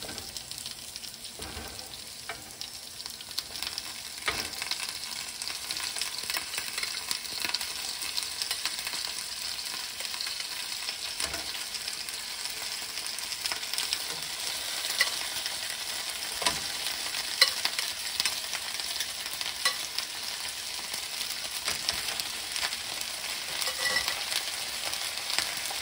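Chicken pieces sizzling as they sear in hot oil in a frying pan, a steady sizzle that grows louder after the first few seconds, with scattered crackles and pops of spattering fat.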